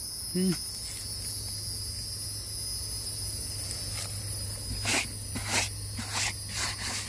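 Insects trilling steadily over a low steady hum, with a brief murmur from the man near the start. From about five seconds in comes a run of short scuffs and rustles as a white plastic lawn chair is handled.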